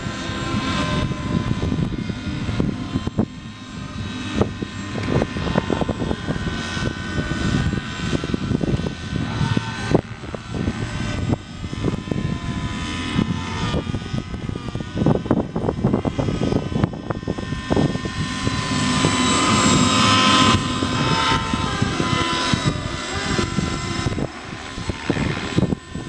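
Radio-controlled model helicopter flying aerobatics overhead: a steady motor-and-gear whine with rotor blade noise, shifting a little in pitch as it manoeuvres and loudest on a closer pass about twenty seconds in.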